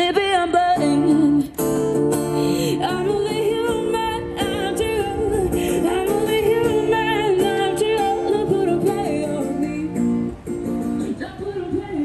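Background music: a song with a singing voice over plucked guitar.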